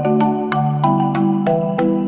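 Background music: a bright mallet-percussion tune over a steady beat of about four hits a second.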